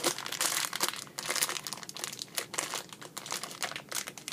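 Packaging crinkling as it is handled, a dense run of irregular little crackles.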